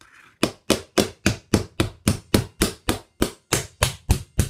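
Steady hammering at about four blows a second, starting about half a second in: a hand-held metal tool, used in place of a hammer, beating on a plastic highlighter pen to break its casing open and free the ink cartridge.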